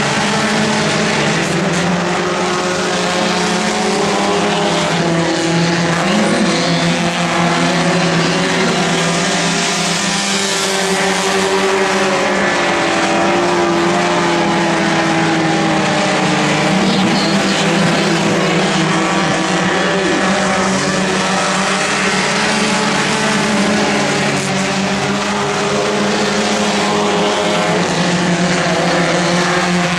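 A field of front-wheel-drive race cars running laps on a dirt oval, several engines heard together, loud and steady with small rises and falls in pitch.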